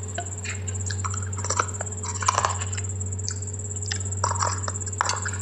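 Crunchy bites and chewing of a brittle food, coming as irregular sharp crunches, over a steady low electrical hum and a faint high whine.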